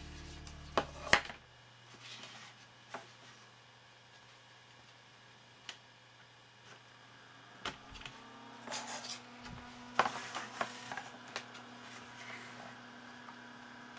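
Handling noise from a 5.25-inch drive-bay front panel being turned over and worked on by hand: scattered clicks and knocks of its metal and plastic parts and cables, the loudest about a second in and again around ten seconds in. Background music fades out in the first second or two.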